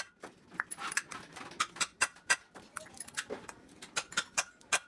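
Irregular sharp metallic taps and clicks, several a second, each with a short ring: metal tools and parts knocking together during work on a truck cylinder head.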